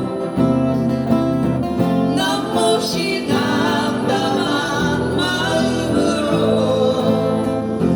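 Singing voice accompanied by a strummed acoustic guitar, a slow song played live.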